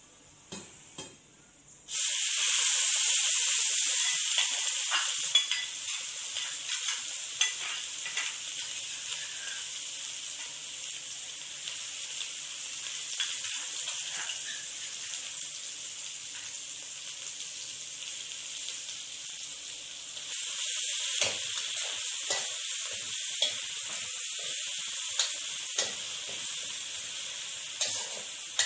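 Hot oil in a wok sizzling. The hiss starts suddenly about two seconds in and slowly eases. From about twenty seconds in it picks up again as a metal spatula stirs the food, clicking and scraping against the wok.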